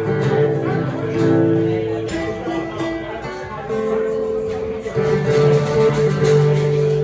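A live band playing an instrumental passage of a song between vocal lines, with sustained chords and no singing.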